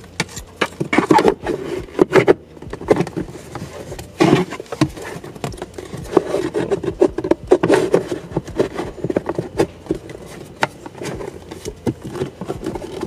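Plastic glove box shelf being worked into place: irregular scraping and rubbing against the glove box lining, with many small knocks as it is pushed and seated.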